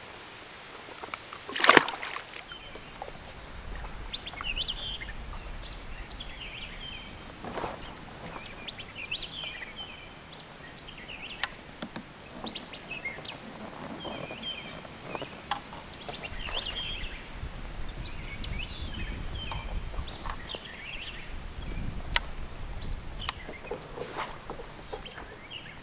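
Birds chirping and calling in many short notes throughout, over a low wind rumble and light water sloshing around a kayak. One loud sharp hit comes about two seconds in.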